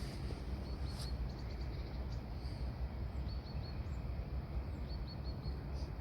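Steady low wind rumble on the microphone. A small bird chirps through it in several short runs of three or four quick, high notes.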